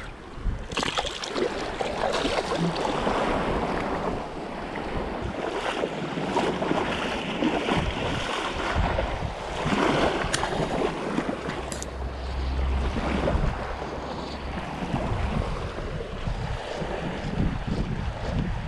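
Small waves washing in the shallow surf of a beach, with wind buffeting the microphone in gusts, heaviest for a couple of seconds past the middle.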